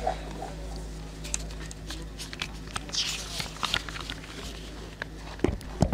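Steady low hum from the podium microphones and public-address system, with scattered small clicks and knocks around the microphones and a few louder knocks near the end.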